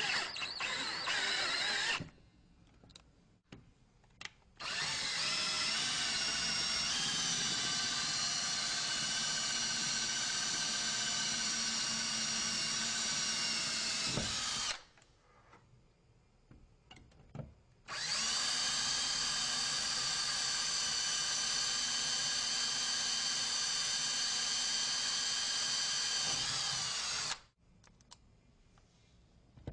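Power drill fitted with a Phillips bit driving screws to fix the lock: a short run, then two long steady runs of about ten seconds each with short pauses between.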